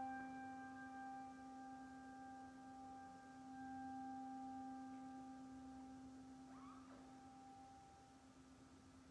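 Sustained ringing musical tones slowly dying away: a held chord fading out, its higher notes falling silent one by one over several seconds while the lowest keeps ringing. There is a faint short chirp about seven seconds in.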